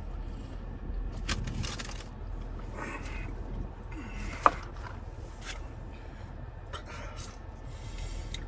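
Scattered rustling and scraping handling noises, with one sharp click about four and a half seconds in, over a low steady hum from the car.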